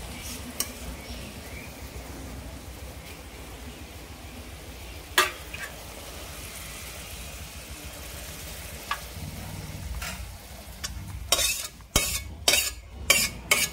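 Thick small-fish curry sizzling in a pan while being stirred, with a few light taps and one sharper clink of a utensil against the pan about five seconds in. Near the end comes a quick run of loud scrapes and clatters of the utensil on the pan.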